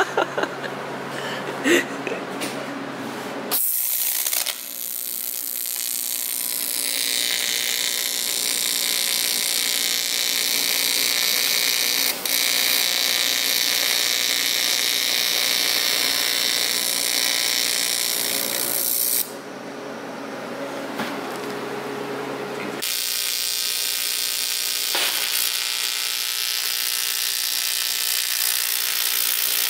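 TIG welding arc buzzing and hissing steadily as an aluminium intercooler end tank is welded, the tone shifting abruptly a few seconds in and twice more later on.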